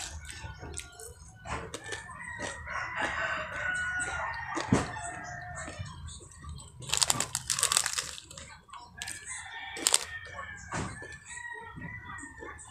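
A rooster crowing twice in long, wavering calls, with the crackle of a plastic snack packet being handled in between.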